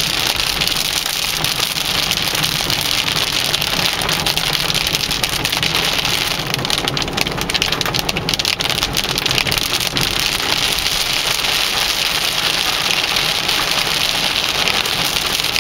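Heavy rain of big drops drumming on a car's roof and windshield, heard from inside the cabin as a dense, steady patter.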